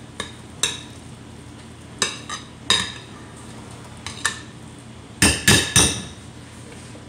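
Spoon clinking and scraping against a glass mixing bowl while potato salad is smoothed flat: scattered short ringing clinks, then three quick louder ones a little after five seconds in.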